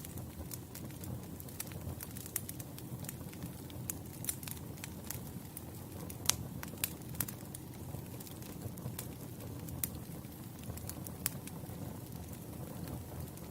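Campfire burning: a steady low rush of flames with irregular crackles and sharp pops of burning wood, the loudest pop about six seconds in.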